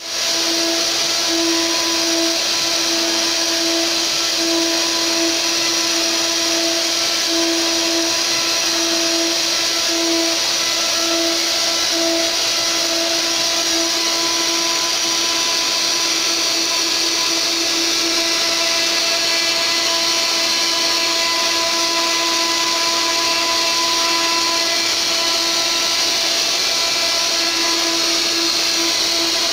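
Mini CNC router spindle running steadily with a high whine as a 4 mm wood-router bit mills a relief carving into a wooden board. A lower steady tone in the machine's sound wavers for the first twelve seconds or so, then holds steady.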